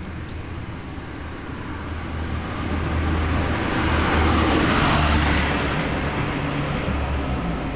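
A road vehicle passing: its noise swells to a peak about halfway through and fades away again, over a steady low hum.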